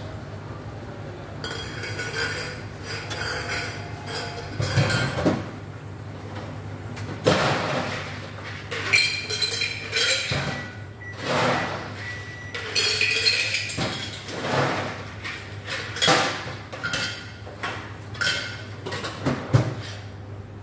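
Glassware and dishes clinking and knocking as they are handled on a counter: irregular clinks, some ringing briefly, over a steady low hum.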